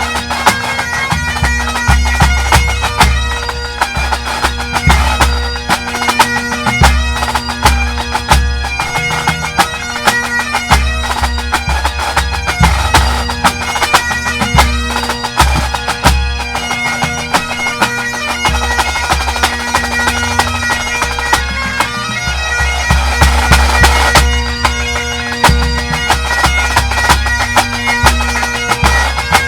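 A full pipe band playing: Great Highland bagpipes sounding a fast tune over their steady drones, driven by rapid snare drum strokes and regular bass drum beats.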